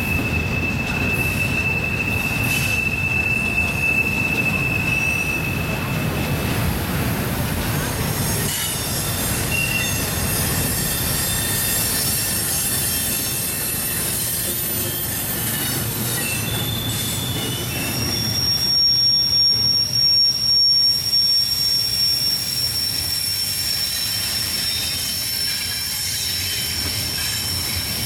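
Double-stack intermodal freight cars rolling past on a sharp curve, with a steady low rumble of wheels on rail. Wheel flanges squeal against the rail in thin, steady high tones: one fades out about six seconds in, and a higher one starts about two-thirds of the way through and holds to the end.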